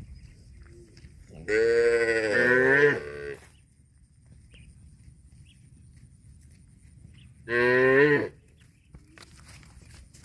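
A cow mooing twice: a long call of about two seconds, falling slightly in pitch near its end, then a shorter call about six seconds later.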